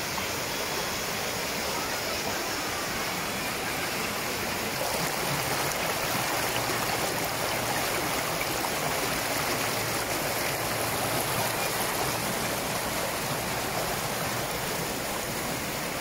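Shallow river water rushing and splashing steadily over rock ledges and between boulders, a small cascade.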